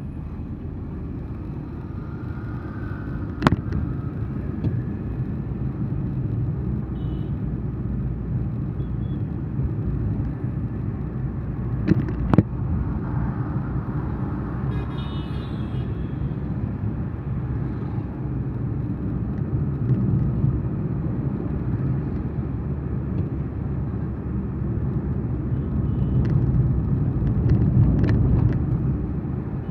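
Car driving along a city road, heard from inside the cabin: a steady low rumble of engine and tyres, with a sharp click about three and a half seconds in and two more around twelve seconds in.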